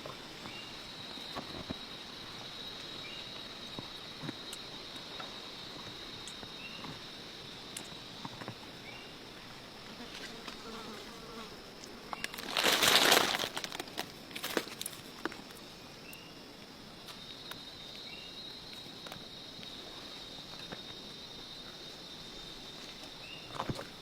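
Rainforest insects chirring in a steady high drone that fades out midway and comes back, with faint chirps repeating every second or two. About halfway through, a loud rustle lasts about a second and a half, with a few small snaps and clicks around it.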